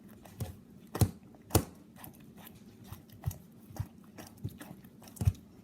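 A run of irregular sharp clicks and knocks, about a dozen, with the loudest about a second in, half a second later, and again near the end.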